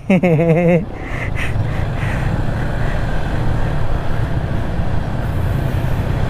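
Riding noise of a Yamaha Sniper 155's single-cylinder engine running steadily under way, mixed with rushing wind and road noise, growing a little louder after the first second.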